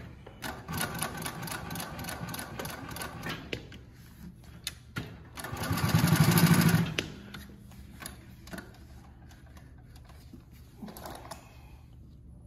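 JUKI LU-2810 triple-feed walking-foot lockstitch industrial sewing machine stitching through several layers of fabric. It runs in two spells: a quieter run in the first few seconds, then a louder, faster run of stitching about five to seven seconds in, after which it stops and only light clicks of handling remain.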